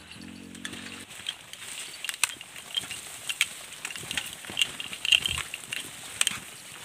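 Footsteps on a dirt trail and leaves and branches brushing past as hikers push through dense undergrowth, with irregular sharp snaps and crackles of twigs and foliage.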